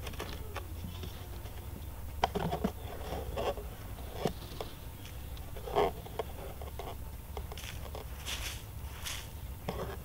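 A plastic bottle and a cardboard disc being handled over a hole in sandy soil: scraping and several sharp taps as the bottle is lifted and set back down, with a brief scraping rush near the end.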